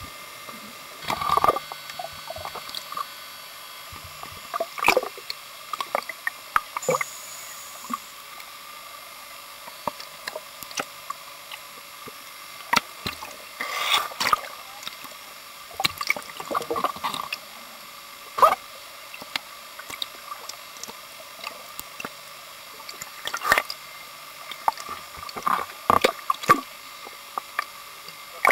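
Water sloshing, gurgling and splashing against an underwater camera housing at the surface, in irregular sudden splashes, over a faint steady hum.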